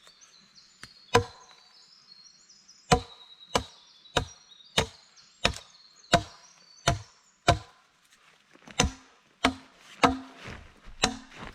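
A hand tool chopping with steady, repeated blows, about one and a half strokes a second, with a short pause about two thirds of the way through. A faint high chirping is heard in the first half.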